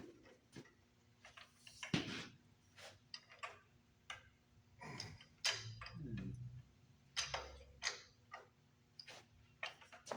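Irregular metal clicks and knocks of hand tools and parts being handled on a diesel engine during a teardown.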